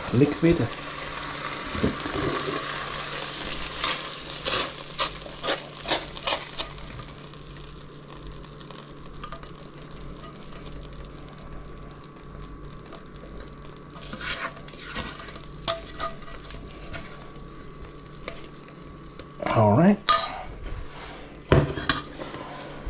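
Juices sizzling in a frying pan, the sizzle dying down over the first few seconds, with sharp clicks and knocks of a utensil against the pan. The loudest scrapes and knocks come near the end.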